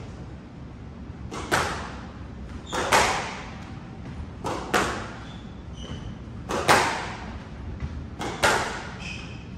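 Squash rally: the ball cracks off the racquets and the front wall in sharp pairs of hits every second or two, ringing through the court, with short squeaks of court shoes on the wooden floor.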